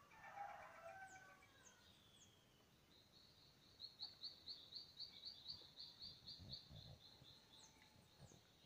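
Birds calling at dawn, faint: a rapid series of evenly spaced high notes, about five a second, swells and fades over about four seconds. Short high downslurred chirps come over it, and a lower call sounds in the first second or two.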